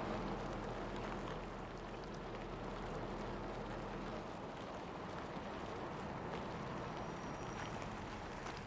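Car engine running, a steady low hum under an even hiss; the hum cuts out about four seconds in.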